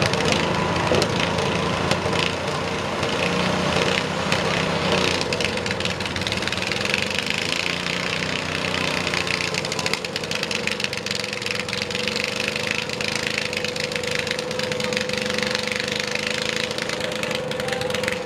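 A garden tractor's small engine running hard under load as it drags a weight-transfer pulling sled, with a rapid, steady firing beat.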